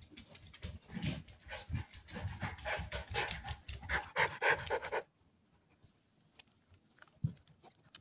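Miniature schnauzer panting rapidly and excitedly up close. The panting stops abruptly about five seconds in, leaving a few faint ticks and a single thump.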